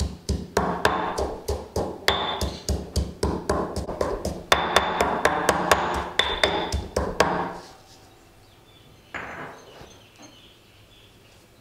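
Stone mortar and pestle pounding fresh herbs, garlic and dried chillies into a paste: a steady rhythm of about three strikes a second that stops about two-thirds of the way through.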